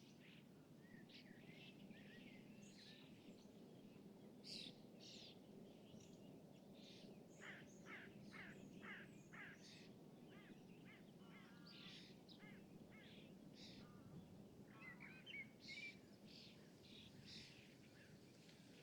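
Lakeside ambience of many small birds chirping and calling in short high notes throughout, with a quicker run of sweeping chirps midway. Beneath them runs a faint, steady low hum of distant city noise.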